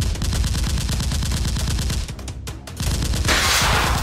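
Rapid, steady automatic gunfire, a dubbed sound effect rather than anything fired on screen. It drops away briefly about two seconds in, then resumes with a burst of hissing noise near the end.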